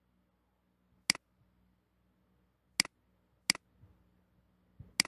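Four sharp computer mouse clicks, unevenly spaced, with a few fainter ticks between the last two.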